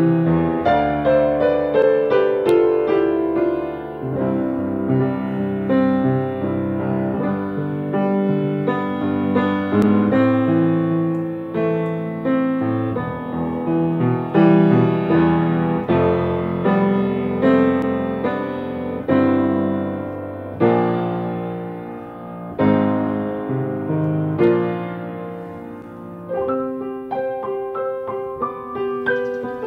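Solo piano music: a flowing run of notes and chords, each note ringing and fading.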